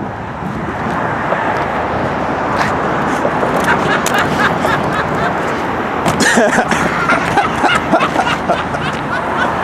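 A group of people shouting and cheering together over outdoor noise, growing louder after the first few seconds.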